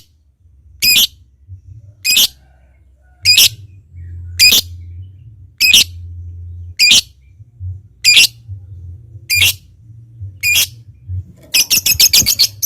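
Lovebird giving short, shrill single calls, about one every 1.2 seconds. Near the end it breaks into a fast clicking chatter.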